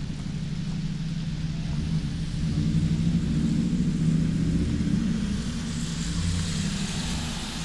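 Low engine rumble of city traffic on a rain-wet street, swelling about three to four seconds in, with a hiss that rises near the end.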